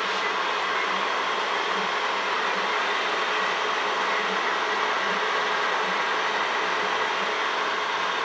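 Crystal QUAD 3D printer running a print job: a steady whir with faint high tones over it, and a low hum that swells and fades about once a second.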